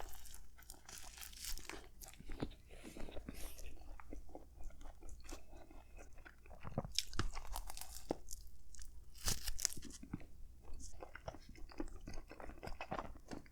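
Close-up chewing of a mouthful of turkey-and-stuffing hoagie, with irregular crunching and crackling as the crusty roll is bitten and chewed.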